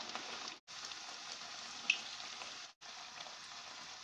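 Corn-flour aloo puris deep-frying in hot refined oil: a steady sizzle with fine crackles and one sharper pop about two seconds in. The sound cuts out briefly twice.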